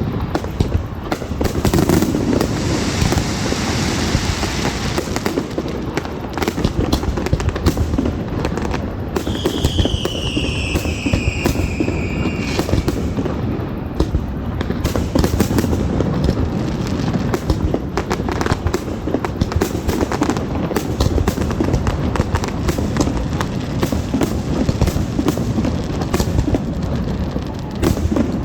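Fireworks display: rapid, continuous bangs and crackling over a low rumble, with a falling whistle about ten seconds in.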